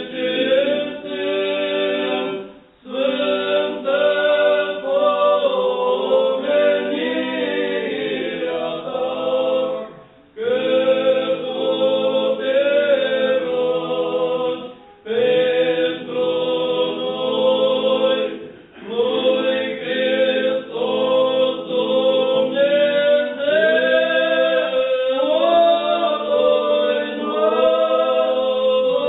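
Orthodox church choir singing unaccompanied liturgical chant in several voices, in long phrases broken by short pauses about three times.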